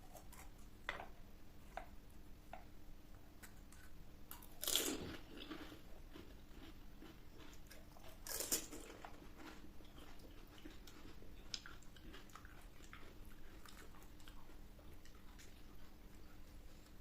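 Crisp panipuri shells crunching as they are bitten, with two loud crunches about five and eight and a half seconds in, and faint chewing clicks in between.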